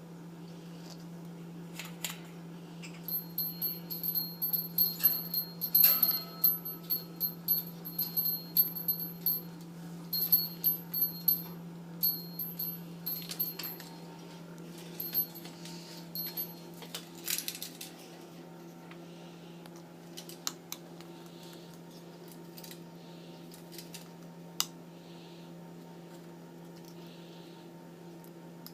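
Eclectus parrot crunching and biting ice cubes with its beak, a quick run of sharp clicks and clinks for about ten seconds that thins out to a few scattered cracks, over a steady low hum.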